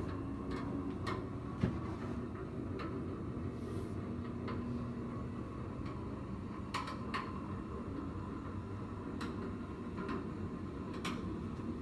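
Quiet room tone with a low steady hum and scattered soft clicks and taps, one sharper knock about one and a half seconds in.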